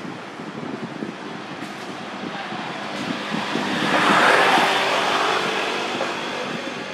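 A motor vehicle passing by, its noise swelling to a peak about four seconds in and then fading.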